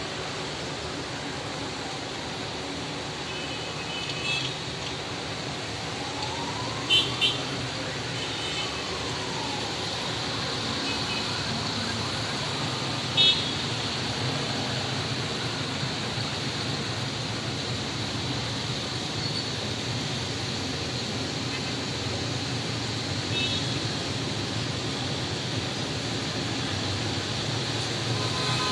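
Steady street traffic noise with several short car horn toots, the loudest a quick double toot about seven seconds in and another about thirteen seconds in.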